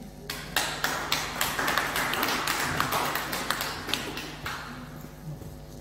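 Small audience applauding, starting just after the thank-you, with single claps standing out, and tailing off about four and a half seconds in.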